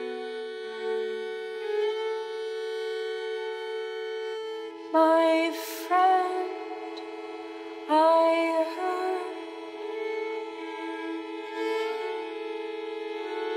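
Bowed violin music: long held notes over a steady drone, broken by sudden loud, sharply bowed notes about five, six and eight seconds in.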